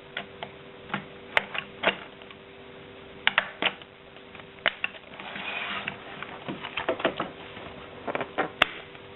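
Irregular plastic clicks and knocks as the palm rest is fitted and snapped onto the edge of a Logitech G110 keyboard, with a short rustle about five seconds in, over a faint steady hum.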